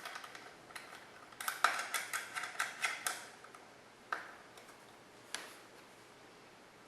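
Small metal clicks and taps from fitting a two-piece brake line clamp and working its two 10mm nuts by hand and tool: a quick run of clicks a little over a second in, then a few single ticks.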